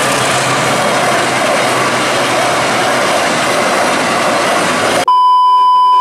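A container freight train hauled by a KAI locomotive passes over a level crossing with a steady, loud rushing rumble of wheels on rail. About five seconds in it cuts off abruptly to a steady, high test-tone beep.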